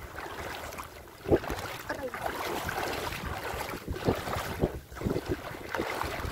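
Wind buffeting the microphone in repeated low thumps, over the wash of shallow seawater stirred up by people wading through it.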